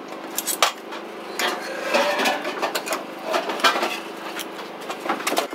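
Irregular clatter of dishes and utensils being handled: a string of short knocks and clinks, some on wood.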